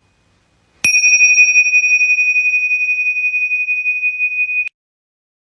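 A single high-pitched bell ding, struck about a second in, that rings on at an even level with a slight waver and then cuts off suddenly after about four seconds.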